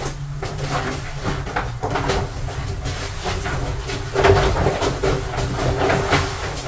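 A steady low machine hum, with scattered light knocks and rustles and a louder knock about four seconds in.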